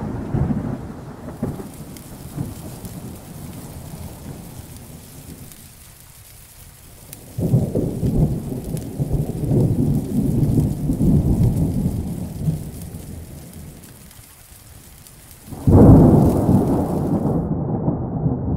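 Thunderstorm: rain falls steadily while thunder rolls three times, a first rumble dying away early, a second swelling about seven seconds in, and the loudest crashing in suddenly near the end.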